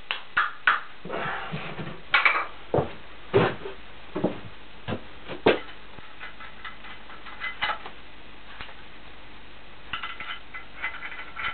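Irregular metal-on-metal knocks from a hammer tapping a bolt into its hole on a milling machine. Near the end come quicker, lighter metallic clinks with a short ring.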